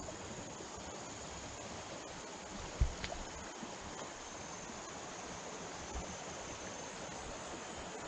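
Steady rush of flowing stream water, with a thin high insect whine over it and a low thump about three seconds in.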